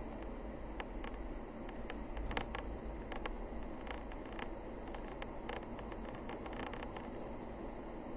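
Steady road and running noise of a vehicle driving along a mountain forest road, with scattered sharp clicks and ticks through the middle of the stretch.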